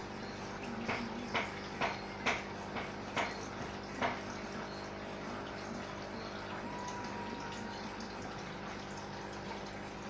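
Water trickling over a steady hum, with a run of about seven sharp clicks in the first four seconds.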